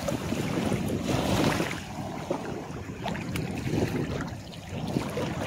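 Shallow, calm seawater sloshing and swishing around the legs of someone wading through a beach trough, swelling unevenly in soft surges.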